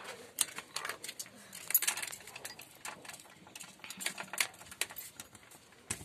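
A bunch of keys on a metal chain jangling and clinking against a metal control panel as they are handled, in scattered, irregular clinks.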